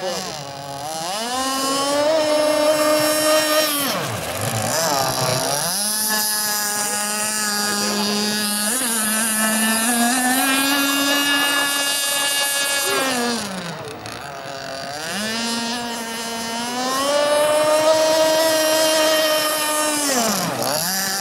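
Combustion engine of a radio-controlled speedboat running at high revs, its pitch dropping sharply three times and climbing back up as the boat slows and speeds up again.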